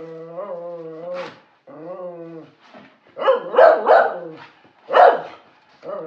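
Excited dog whining in long drawn-out tones, then barking four times in quick succession, at a parcel being opened.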